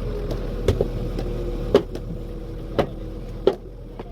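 A steady machine hum, broken by four or five sharp knocks spaced about a second apart.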